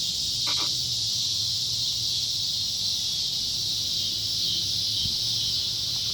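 Steady chorus of insects, an unbroken high-pitched buzz.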